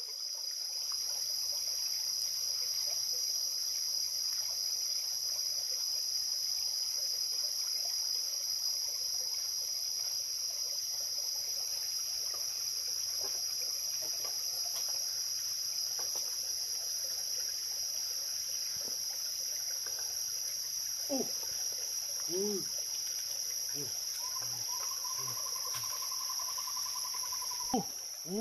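Steady, high-pitched drone of an insect chorus in tropical forest, with a few short calls and one long trilling note near the end.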